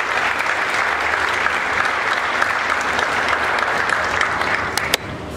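Audience applauding, a dense, steady patter of clapping that drops away about five seconds in, just after a sharp knock or two.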